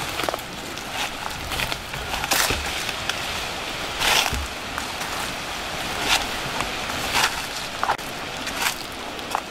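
Footsteps crunching through dry leaf litter and underbrush, with irregular crackles and rustles about once a second over a steady hiss.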